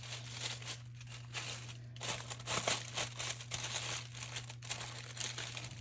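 Plastic oven bag crinkling and rustling irregularly as it is gathered and handled around a turkey, busiest about halfway through, over a steady low hum.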